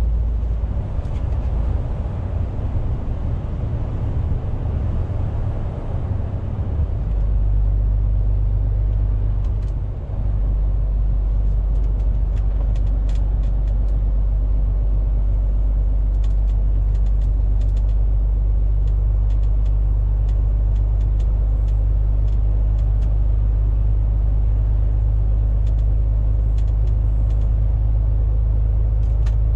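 Steady low drone of a MAN TGX 470 truck's diesel engine and road noise, heard from inside the cab while driving. The low rumble shifts during the first several seconds and dips briefly about ten seconds in. Faint light ticks come scattered through the later part.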